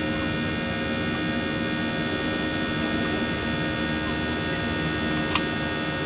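Cabin noise inside a Boeing 737-800 in the climb after takeoff: the steady drone of its CFM56-7B engines and the airflow, with several steady whining tones over it.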